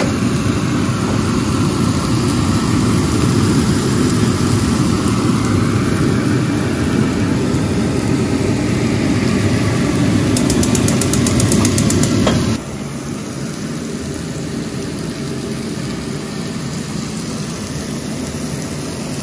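Chicken skewers sizzling on a hot stovetop grill pan, over a steady low rumble. The whole noise drops sharply in level about twelve and a half seconds in.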